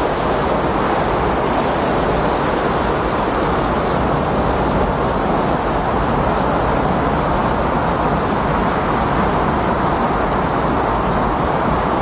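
Steady windstorm sound: a loud, even rushing noise with no gusts, swells or breaks.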